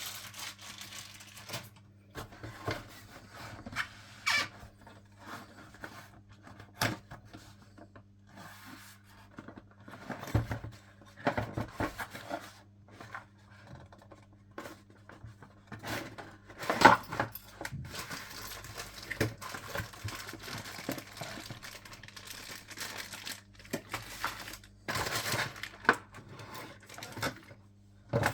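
Packaging and parts being handled: crinkling and rustling with scattered knocks and clicks at irregular moments, over a faint steady low hum.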